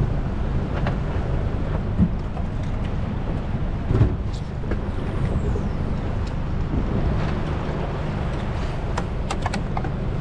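Boat motor running steadily, with two brief low knocks about two and four seconds in.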